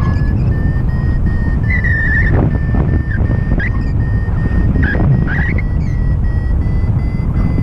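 Paragliding variometer beeping in quick short pulses, its pitch creeping slightly higher: the sign of climbing in lift. Heavy wind rumble on the microphone from the airflow in flight.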